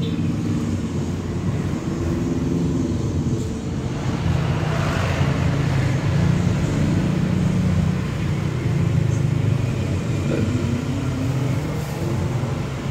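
Street traffic: a motor vehicle engine running with a steady low rumble, with a passing vehicle rising and fading about five seconds in.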